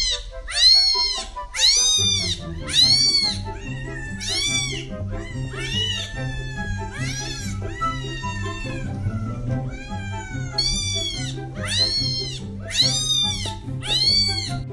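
Kitten recording played from a smartphone: high, repeated meows, about one a second, each rising and then falling in pitch, over background music.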